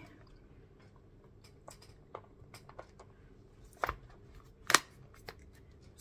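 Clear plastic stamp sheets and craft supplies being picked up and put away by hand: scattered light clicks and taps, with two sharper clicks a little past halfway.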